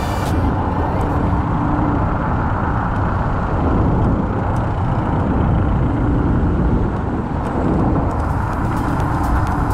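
Steady rushing wind noise on the camera's microphone and road rumble while riding an electric scooter, with a faint hum that rises in and out twice.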